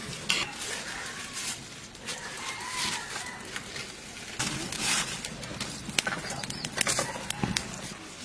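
Chickens calling, with the crackle and snap of dry twigs and leaves being handled and fed into a wood fire.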